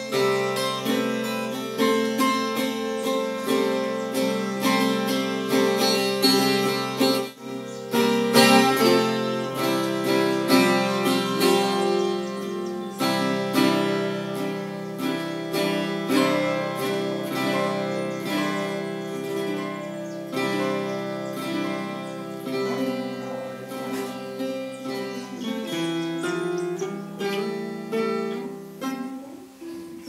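Instrumental background music led by an acoustic guitar, picked and strummed in a steady rhythm, with a brief break about seven seconds in.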